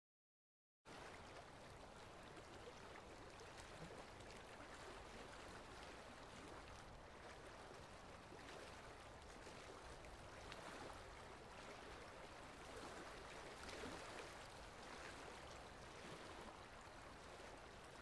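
Faint, steady running water of a small stream, beginning about a second in.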